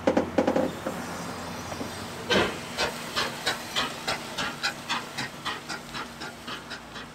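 1910 Stanley Steamer Model 60 steam car pulling away from a standstill: a burst of steam hiss as it starts, then the steam exhaust chuffing about three times a second, growing fainter as the car drives off.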